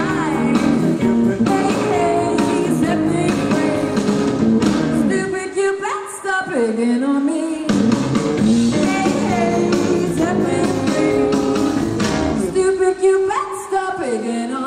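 Live rock-and-roll band with upright bass, drums, saxophone and electric guitar, and a woman singing lead. Twice the backing thins out for a moment before coming back in.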